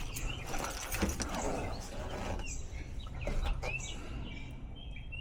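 Songbirds chirping, several short separate chirps, over faint clicking and handling noise.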